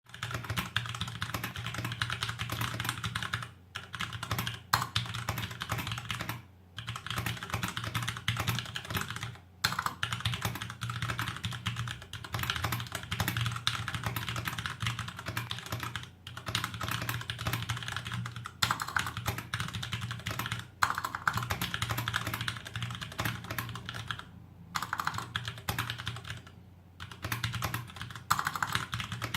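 Fast continuous typing on a WASD VP3 mechanical keyboard with Cherry MX Brown tactile switches: dense rapid key clicks and clacks, broken by a few brief pauses.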